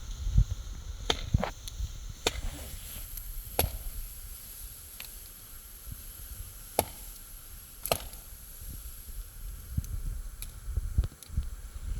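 Wood being chopped: a handful of sharp, separate chops at irregular intervals, over a low wind rumble on the microphone.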